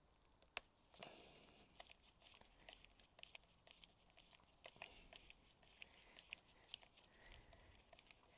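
Faint scattered clicks and light ticks of hand work on small bolts at a motorcycle's front fork, with one sharper click about half a second in.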